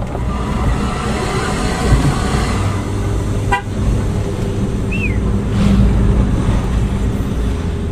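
Steady engine and road rumble of a moving car, heard from inside, with a short high toot about three and a half seconds in and a brief falling squeak about five seconds in.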